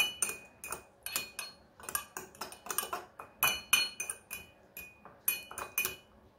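A metal utensil stirring salad dressing in a small glass bowl, clinking against the glass in a quick, irregular run of taps, each with a short bright ring.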